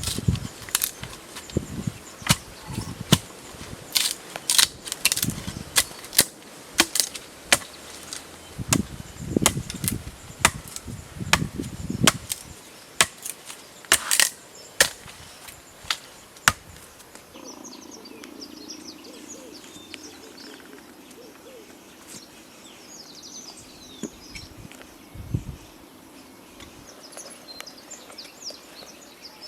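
Irregular sharp cracks and knocks, some with a dull thud, for about the first sixteen seconds, then they stop, leaving a low steady hum and faint high chirps.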